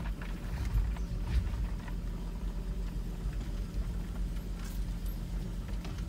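VW T4 van driving slowly along a rough dirt track, heard from inside the cabin: a steady low engine and road rumble with a few knocks and rattles, the loudest about a second in.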